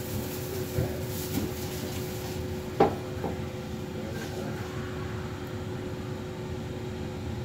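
Express people-mover tram running, heard from inside the car: a steady low rumble with a constant two-note electrical hum. One short sharp knock stands out about three seconds in.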